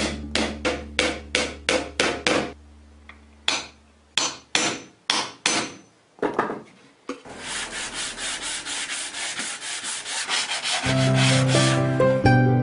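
Hand sanding of a wooden board with a sanding block: a steady back-and-forth rasp of sandpaper on wood through the second half. Before it comes a string of sharp taps, and plucked-string music comes in near the end.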